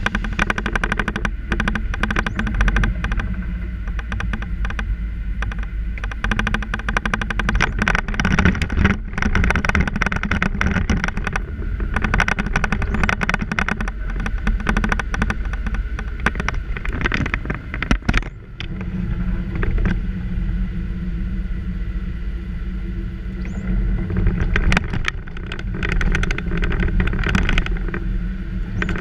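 Car driving on wet city streets, heard from inside the cabin: a steady low engine and tyre rumble with a constant irregular rattling and clattering, dipping briefly about two-thirds of the way through.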